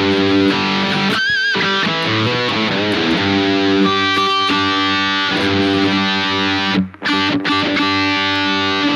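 Harley Benton Fusion electric guitar played through a Fractal Audio FM9 modeller on a distorted high-gain rhythm tone: ringing sustained chords, with a single held note shaken with vibrato about a second in and a brief break near the end.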